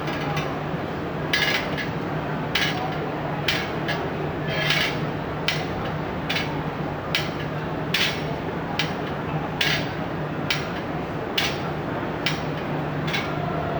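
Steel bars being struck, a sharp metallic clank about once a second with a brief ring after each, over a steady low hum.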